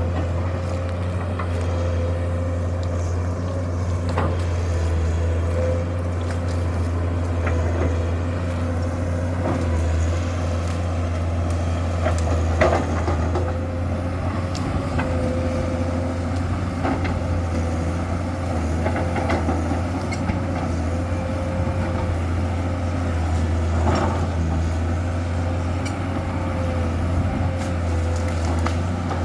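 Komatsu PC200-7 hydraulic excavator working, its six-cylinder diesel engine running steadily with a steady higher whine over it. A few sharp knocks or cracks stand out, the loudest about twelve seconds in.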